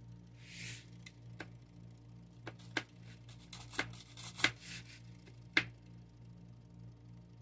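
Faint steady electrical hum with a brief rustle just under a second in, then a handful of sharp clicks, irregular and about a second apart, the loudest about four and a half and five and a half seconds in.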